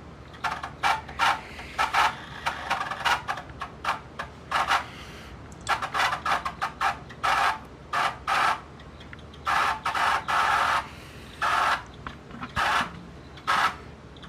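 Pioneer CT-W840R cassette deck's right-hand tape transport making struggling noises while playing a tape: irregular stop-start bursts of harsh scraping sound, some brief and some lasting about a second, over a steady low hiss.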